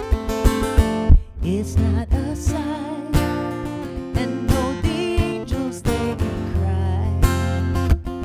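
Acoustic guitar strummed and picked while a woman sings. Her voice wavers with vibrato through the middle of the passage.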